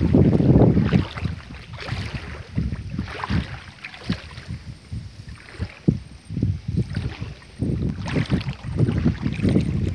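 Wind buffeting the microphone outdoors: a heavy low rumble in the first second, then irregular gusts and bumps.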